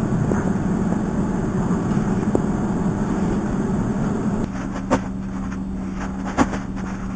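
Steady low hum of room or appliance noise. A little past halfway it settles to an even single pitch, and a few sharp knocks and rustles follow as a roll of freezer paper and frozen patties are handled on a counter.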